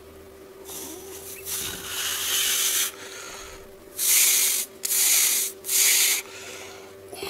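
Heavy breathing close to the microphone as a man strains through a muscle-flexing pose: one longer hissing breath, then three short, hard exhales in quick succession near the end.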